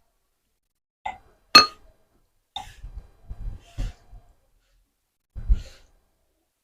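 A few short, scattered sounds separated by silence. The loudest is a sharp clink with a brief ring about one and a half seconds in, followed by several soft knocks and bumps, one near the end.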